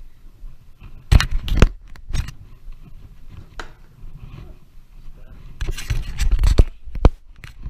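A partly filled plastic water bottle flipped onto a table, landing with a couple of sharp thuds about a second in. Near the end there is a louder stretch of rustling and knocking as the wearer moves about.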